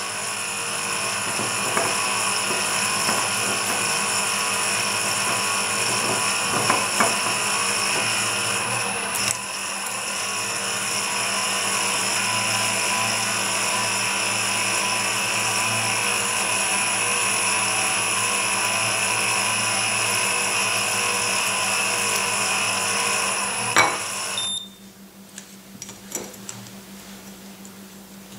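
Shimano Beast Master 9000 electric fishing reel's motor running steadily, winding line onto the spool. It stops about four seconds before the end, leaving a few faint clicks.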